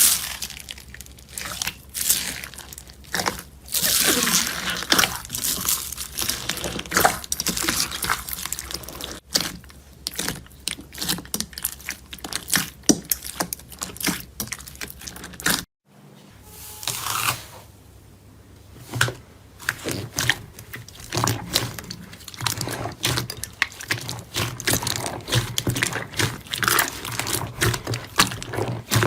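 Slime being squished, pressed and stretched by hand: a dense, irregular run of sticky crackles, pops and crunches. The sound breaks off briefly about halfway through, then similar squishing resumes.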